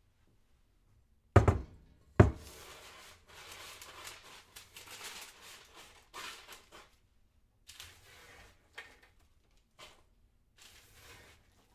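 Kitchen handling sounds: two loud thunks less than a second apart, then a string of short, irregular rustling and scraping noises.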